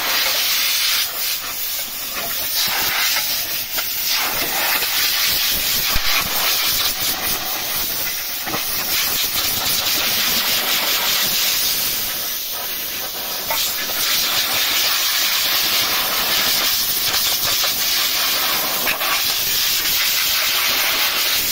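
Compressed-air blow gun hissing steadily as it blasts caked dirt out of a car radiator's fins, dipping briefly now and then as the nozzle moves.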